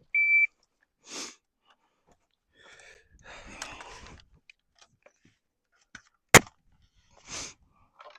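Shot timer giving its short, steady start beep, then about six seconds later a single sharp gunshot, the loudest sound; a few short breathy noises fall in between.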